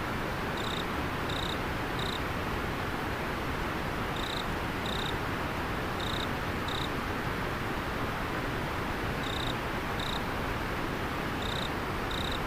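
Steady rush of river water, with a single insect chirping over it: short, clear, high chirps about two-thirds of a second apart, in groups of two or three with pauses between.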